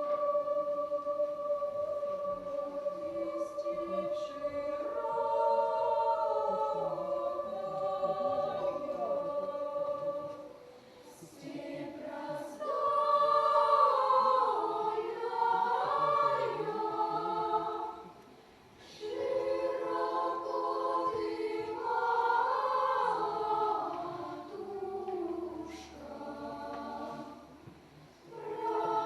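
Choir singing in several parts, apparently unaccompanied. It opens on a long held chord, then moves through phrases with short breaks between them.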